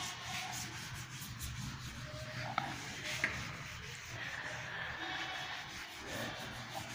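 Cloth duster rubbing chalk off a chalkboard in repeated wiping strokes.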